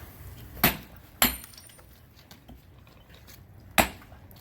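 Hammer blows driving a hot-cut chisel into a hot iron bloom to split it: sharp metallic strikes, two in quick succession about half a second in and a third near the end, some leaving a short high ring.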